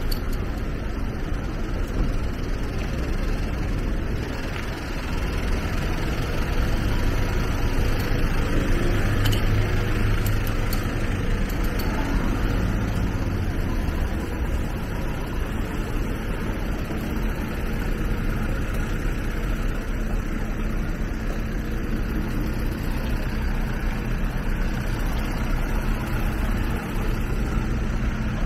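Steady engine rumble from idling fire engines and passing traffic, with the hiss of tyres on a wet road. The rumble swells for a few seconds in the middle as a vehicle passes close.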